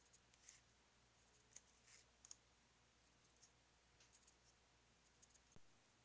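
Near silence with faint, scattered clicks and short light scratches from hands handling a ceiling fan motor's shell and marking it with a marker pen; the sharpest clicks come around two seconds in.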